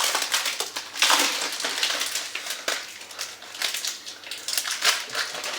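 White chocolate bars being broken up in their plastic packets: an irregular run of crunching and crackling with wrapper crinkling.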